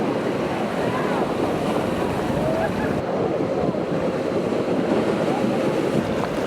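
Steady rush of ocean surf with wind blowing across the microphone.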